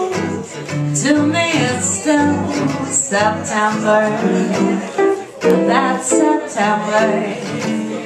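A woman singing a jazz vocal line into a microphone, her held notes wavering with vibrato, over plucked guitar accompaniment.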